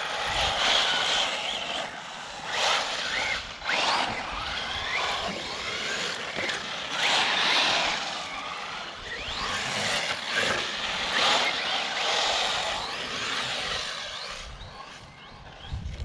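Traxxas Slash 4x4 RC truck with a Hobbywing 3660 3200KV brushless motor, driven hard on sand and gravel. The motor whine rises and falls in pitch with repeated bursts of throttle, over the hiss of tyres spraying loose sand.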